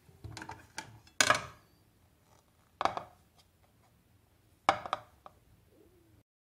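Metal spoon knocking and scraping against a glass baking dish and a ceramic plate: a few soft scrapes, then three sharp clinks about one, three and nearly five seconds in.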